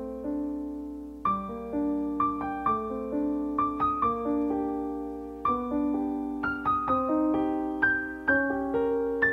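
Background music: a slow solo piano piece, with notes and chords struck and left to ring out.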